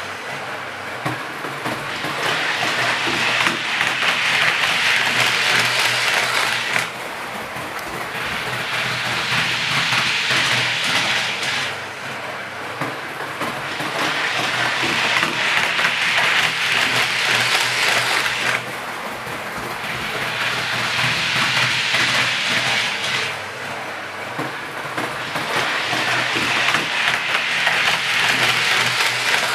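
Hornby model LNER Azuma Class 800 train running around its track, a continuous whirring rattle of motor and wheels on the rails that swells as it passes close and drops away, about every eleven seconds.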